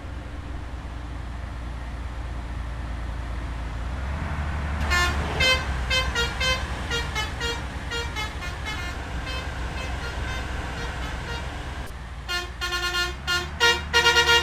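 Tour bus engine running with a low rumble, then from about five seconds in its multi-tone telolet horn plays a quick melody of short toots. The horn stops briefly, then starts again louder near the end.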